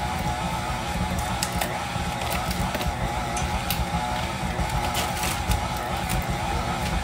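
Electric stand mixer running steadily, its beater churning a thick mix of shredded chicken and cream cheese, with a wavering motor whine over a low rumble. Light clicks and crackles come over it as a plastic tub's lid and foil seal are pulled off.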